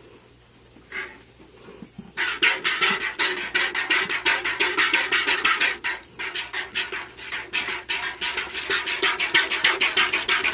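Hand milking a Saanen goat: quick, regular squirts of milk hitting a bucket, several a second, starting about two seconds in with a brief pause around six seconds.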